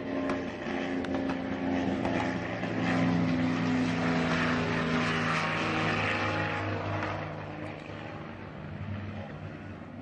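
Aircraft engine drone with steady humming tones, growing louder over the first few seconds and then fading, as of an aircraft flying past.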